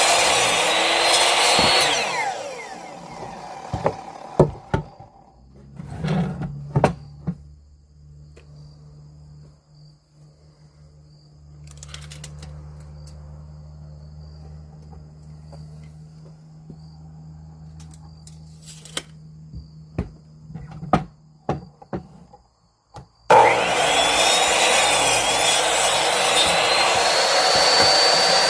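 Electric woodworking power tool cutting or shaping trim wood, its motor whine winding down about two seconds in. A stretch of scattered knocks and clicks from handling the work follows, over a low steady hum. Near the end the tool starts up suddenly and runs again.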